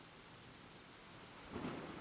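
Thunder: a quiet, even background, then a sudden thunderclap breaks about one and a half seconds in.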